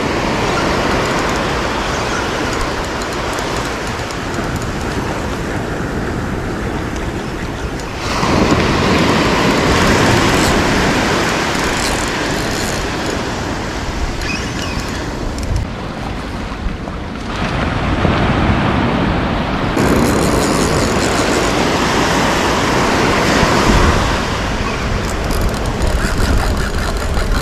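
Small surf waves breaking and washing up a shallow beach, with wind rumbling on the microphone; the noise shifts abruptly a few times.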